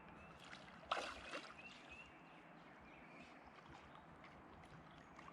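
Water splashing once, sharply, about a second in, as a hooked carp is brought in close, over a faint steady wash of running water.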